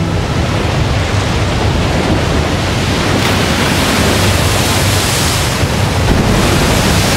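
Loud rushing and splashing sea water as a harpooned whale thrashes beside a small wooden boat, with wind buffeting the microphone.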